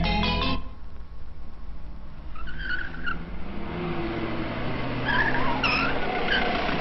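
Car tyres squealing as cars speed and skid along a street, over a steady rush of engine and road noise: one squeal about two and a half seconds in, then several more in quick succession from about five seconds on.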